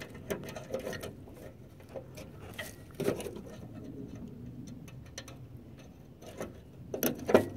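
Light, irregular metal clicks and ticks of a small cotter pin and washer being worked off by hand from the spring bolt on a Craftsman riding mower's deck, with a few louder clicks near the end.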